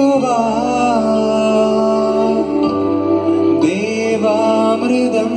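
Live band music amplified through PA speakers: a wavering melody over sustained keyboard chords, with the bass note changing about halfway through.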